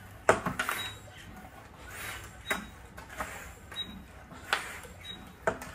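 A 2.3-gallon hand-pump vacuum fluid extractor being pumped a few more times: a sharp click or clunk with each stroke of the handle, roughly one a second, with hissing air between. The engine oil is already drawn out, and the extra strokes pull the last drops from the sump.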